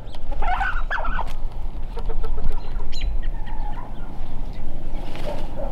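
Chickens clucking, with a few louder calls about half a second in, as a bantam rooster grabs a laying hen to mate her. A steady low rumble runs underneath.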